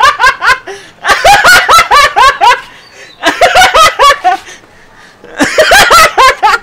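A woman laughing hard in four fits of rapid high-pitched "ha-ha" pulses, each lasting about a second, with short breaths between them.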